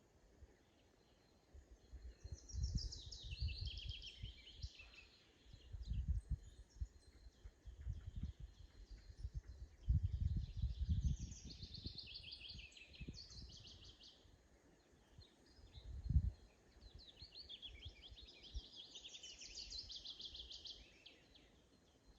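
A songbird singing three quick, high phrases of rapid repeated notes, a few seconds apart. Irregular low rumbles come and go underneath, the loudest about ten seconds in and again near sixteen seconds.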